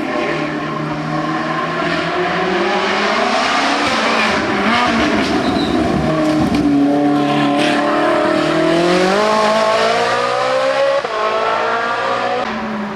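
Race car engine pulling hard up a hill-climb course, its note climbing through the revs and dropping back with gear changes, with a sharp drop on an upshift near the end.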